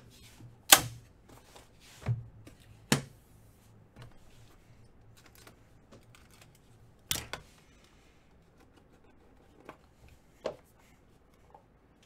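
Trading cards being handled: about half a dozen separate sharp taps and clicks, the loudest under a second in and two close together about seven seconds in.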